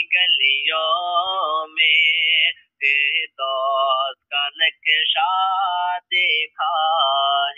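Male voice singing an Urdu devotional song (manqabat), in short phrases with brief breaks between them and a pitch that wavers within each phrase.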